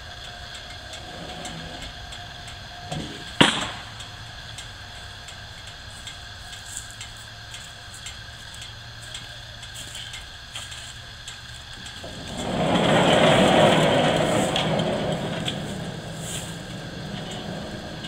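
Woodland Mills HM126 portable bandsaw mill running with a steady hum, a single sharp knock about three seconds in, and a loud rushing noise that swells up about twelve seconds in and dies away over a few seconds.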